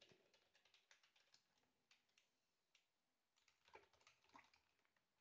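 Faint computer keyboard typing: a run of quick key clicks over the first couple of seconds, a pause, then another flurry of keystrokes about three and a half seconds in.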